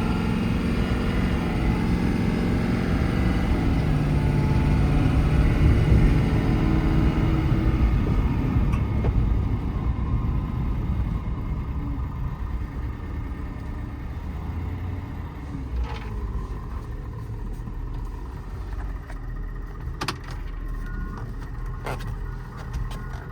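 Ford 6.7 L Power Stroke diesel of an F-550 pickup running while driving, heard from inside the cab: it grows louder over the first six seconds, then settles to a quieter run. A few sharp clicks come in the second half.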